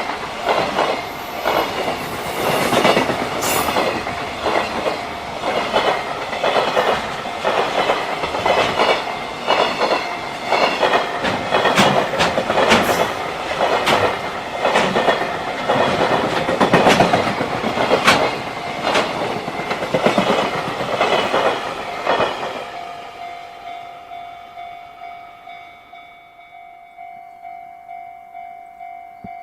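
Freight train passing a level crossing, its wheels clattering over the rail joints in a dense run of knocks. About 22 seconds in the train noise falls away, leaving the level-crossing alarm ringing in a steady tone that pulses about twice a second.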